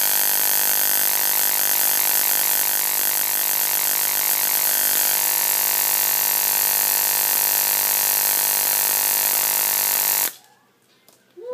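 Relay ignition coil driver running: the relay chattering as it switches the ignition coil, which draws a continuous high-voltage arc, giving a loud, steady electrical buzz. It cuts off suddenly about ten seconds in.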